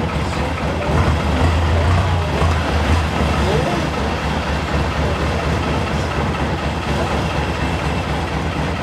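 Long-tail boat engine running steadily under way, a low drone.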